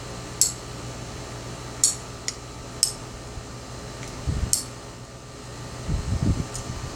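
About six sharp clicks at irregular intervals as building parts are cut and handled, with a few dull bumps near the end. A steady fan-like hum runs underneath.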